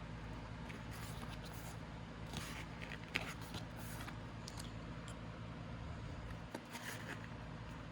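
Pages of an album photobook being handled and turned, with light paper rustling and scraping and one sharp click about three seconds in, over a steady low electrical hum.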